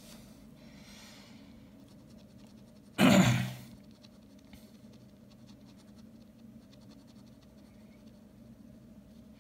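Ballpoint pen scratching on drawing paper in short shading strokes. A sudden loud burst of noise cuts in about three seconds in and fades within half a second.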